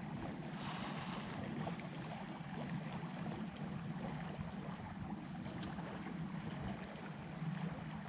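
Steady outdoor ambience on a river: an even hiss of moving water and air over a constant low hum, with a couple of faint ticks.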